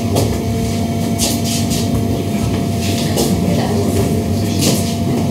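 Steady machine hum in the Accuray CyberKnife robotic radiosurgery room: a constant low drone with two fixed tones, broken by a few short hissing rustles.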